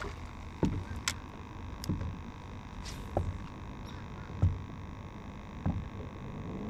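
Water slapping against the hull of a small boat in soft low thumps about every second and a quarter, over a steady electric hum, with a few faint light clicks.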